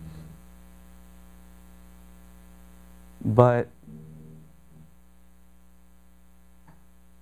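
Steady electrical mains hum with a buzz of evenly spaced overtones, under a pause in a man's talk. A single faint click near the end.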